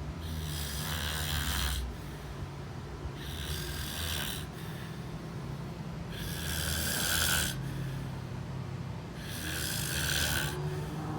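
Snoring in slow, regular breaths, about one every three seconds, each a breathy rush of air over a low rattle that carries on between them.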